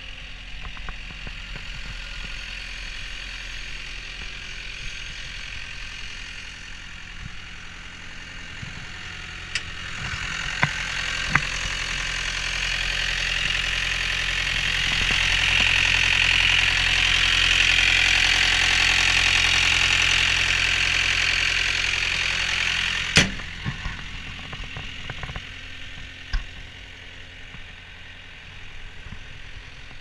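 CAT 242B3 skid steer's diesel engine idling steadily. It grows louder and hissier from about ten seconds in while the engine bay is open, with a few clicks, and drops back after a sharp clank about 23 seconds in.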